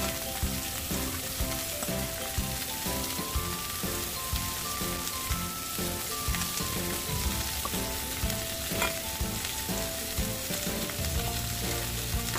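Beef shank searing in hot oil with ginger in a pot: a steady sizzle. A background music melody plays along with it.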